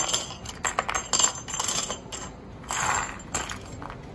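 Loose metal screws, L-brackets and cabinet hinges clinking and rattling against each other as a hand sorts through them on cardboard. It comes as a run of quick small clicks, with a short scraping rustle about three seconds in.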